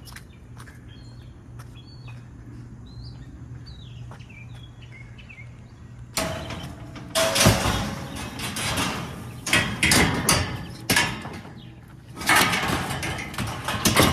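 Birds chirp faintly. About six seconds in, loud clanking and scraping of metal pickup bed rails being handled and loaded begins, coming in several bursts with sharp knocks.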